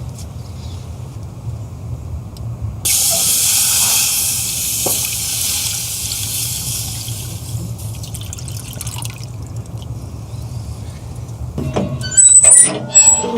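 A loud sizzling hiss on a hot barbecue grill, starting suddenly about three seconds in and slowly dying down, over a steady low rumble. Near the end come loud metallic clattering and squeaks.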